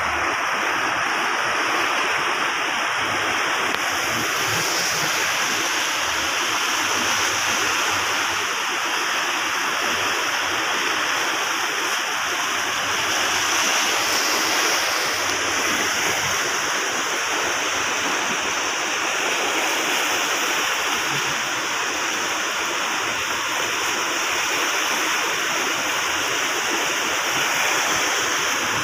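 Fast-flowing muddy floodwater rushing and churning, a steady, even rush of turbulent water.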